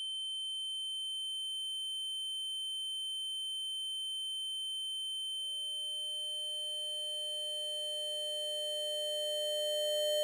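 Steady high-pitched electronic tone, part of the film's soundtrack. About halfway through a lower tone comes in, more tones pile on, and it grows steadily louder toward the end.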